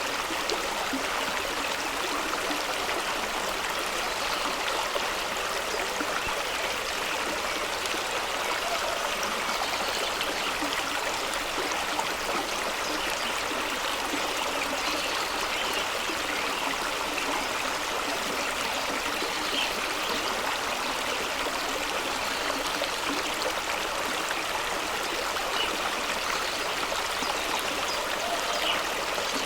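Fast-running stream flowing over rocks: a steady, unbroken rush of water.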